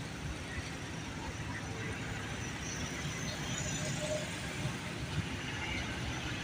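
Road roller's engine running steadily, a low rumble.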